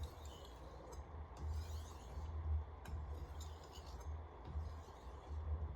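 Steel blade of a Wüsthof Classic chef knife drawn in repeated strokes across a 3000-grit whetstone, a faint gritty rasp with each pass and a few light clicks: the polishing stage after the 800-grit stone.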